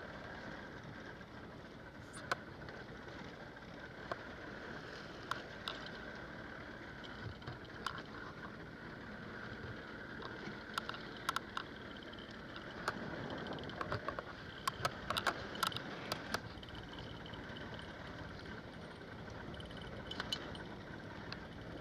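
Boat engine running steadily, with scattered sharp clicks and knocks that crowd together about two-thirds of the way through.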